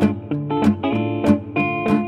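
Background music led by guitar, with a steady beat.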